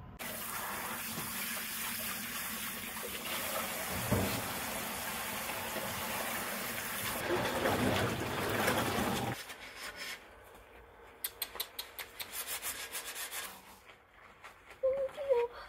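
Tap water running hard into a stainless steel sink and over a pan for about nine seconds, then shut off suddenly. Quick rubbing and scrubbing strokes of rubber-gloved hands follow, with a brief squeak near the end.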